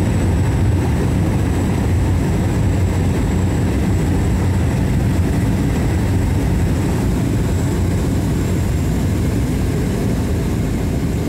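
Cabin noise of a Cessna 208 Caravan's single PT6A turboprop engine and propeller on final approach just before touchdown: a steady low drone with a thin high whine above it.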